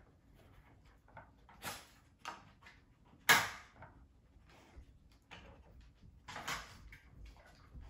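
Plastic interactive dog puzzle toys clacking and clattering as dogs nose and push their sliding and flipping pieces, in scattered irregular knocks with one sharp clack about three seconds in.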